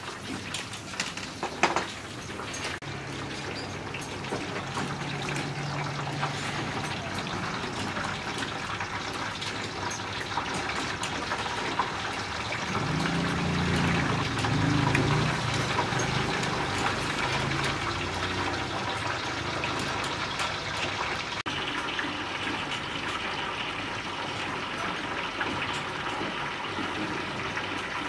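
Water running steadily, with a sharp knock about two seconds in.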